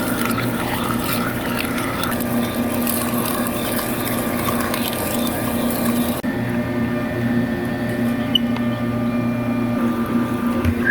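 CNC vertical lathe running while turning an aluminium part, with a steady machine hum and a hiss of coolant or cutting. The hiss drops away about six seconds in.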